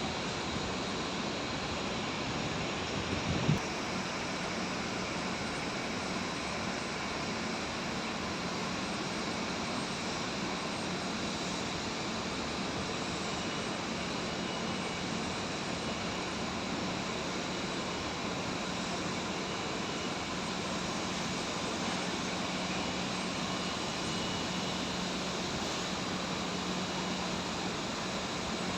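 Mobile crane's engine running steadily, with a brief knock about three and a half seconds in.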